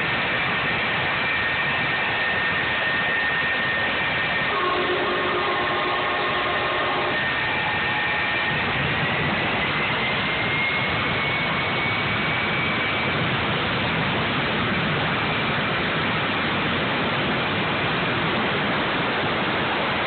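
Jet engine of a jet-powered truck running at full power: a loud, steady rush with a thin high whine that climbs in pitch in the middle. A separate pitched tone sounds for about two seconds, roughly five seconds in.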